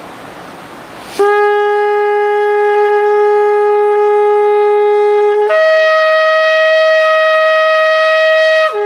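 An 85 cm shofar blown in two steady notes. A low note starts about a second in and is held for about four seconds, then jumps to a higher note for about three seconds and falls back to the low one near the end. These are the shofar's two common notes, sounding very well tuned.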